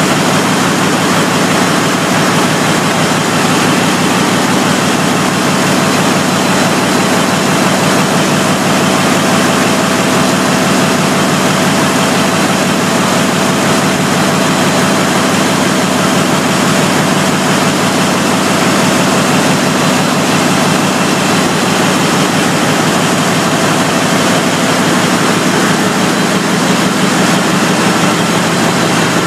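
Large MAN V-type diesel engine of a generator set running steadily on test, a loud, dense, unchanging engine noise with a strong low hum and a faint steady tone above it.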